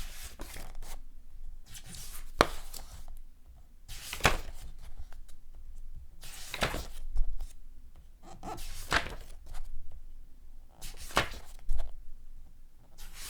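Paper pages being turned one after another, each turn a short papery swish and flap, about one every one to two seconds.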